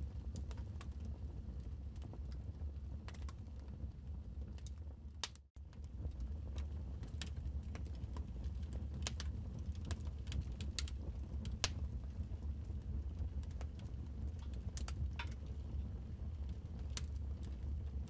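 Wood fire crackling: irregular sharp pops and snaps over a steady low rumble. The sound cuts out for an instant about five and a half seconds in.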